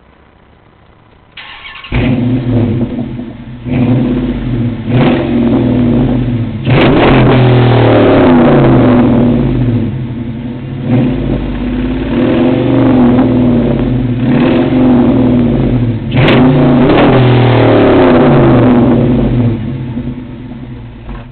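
Chrysler 300C's 5.7 L Hemi V8 through Flowmaster 40 mufflers, an SRT8 X-pipe and 3-inch tailpipes, starting about a second and a half in and then revved over and over, with several long holds at high revs, before dropping away near the end.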